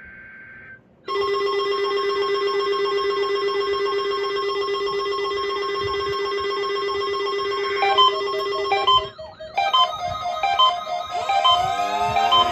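Weather radio weekly-test warning signal played as electronic musical tones. It opens with the faint end of a two-tone data burst. About a second in, a loud steady electronic chord with a fast warble begins. About 8 s in, this turns into a repeating melody of short beeping notes.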